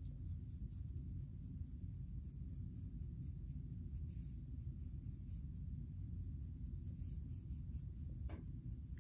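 Fine-tooth comb scratching through short, wavy hair and across a flaky scalp in faint, short strokes, over a steady low rumble.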